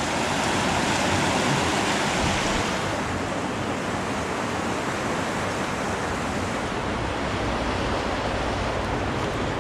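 Rushing water of a fast, rocky mountain trout stream, a steady hiss of water flowing over rocks.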